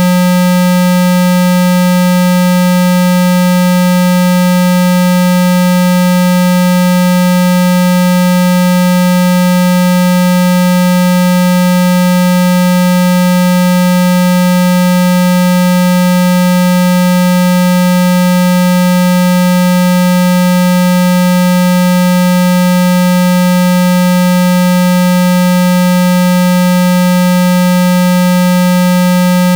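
A 195 Hz water-eject tone: a loud, steady, low synthetic buzz held at one pitch without any change, played through a phone speaker's range to vibrate trapped water out of the speaker grille.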